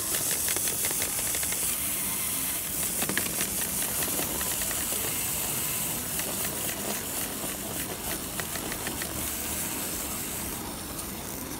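Clockwork motor of a wind-up toy elephant running: a steady whirr with rapid fine ticking, fading a little near the end.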